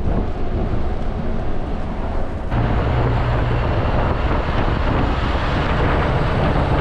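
Scania V8 truck on the move: engine rumble heard from the cab, then about two and a half seconds in the sound jumps to an outside-mounted camera, with wind rushing over the microphone on top of the engine and road noise.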